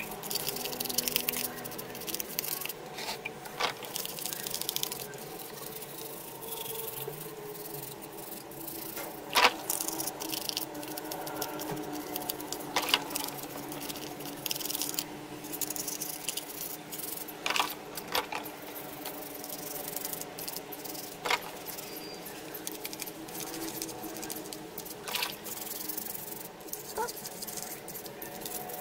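Wet hand-scrubbing of a small black plastic TV antenna terminal housing in a basin of soapy water: squishing, rubbing and light splashing. Now and then a sharp click as the plastic part or a tool knocks.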